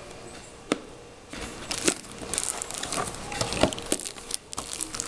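Plastic DVD cases being slid out of a cardboard box-set sleeve and handled: rustling and scraping with scattered sharp clicks, busier from about a second and a half in.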